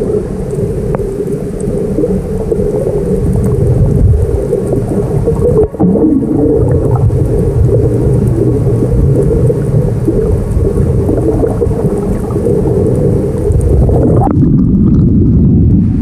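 Steady, loud, low-pitched water noise picked up by an underwater camera, with a faint hiss above it that drops away near the end.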